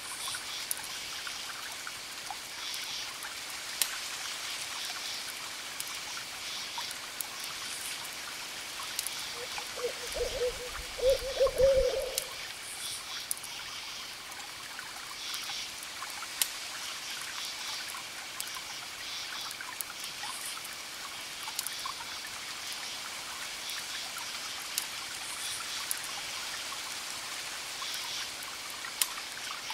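Crackling wood fire, with scattered sharp pops over a steady trickle of water or rain. An owl hoots about ten seconds in, a wavering call that lasts roughly two seconds and is the loudest sound.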